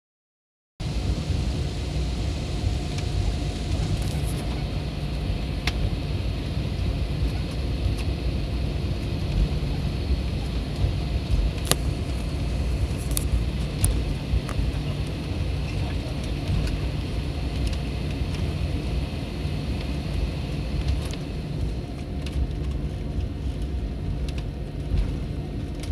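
Cabin noise of an Airbus A320 airliner taxiing: a steady low rumble of the engines at idle, with a faint steady whine and a few sharp clicks and rattles from the cabin.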